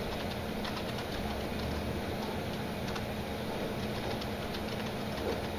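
Computer keyboard being typed on, scattered light key clicks, over a steady mechanical room hum.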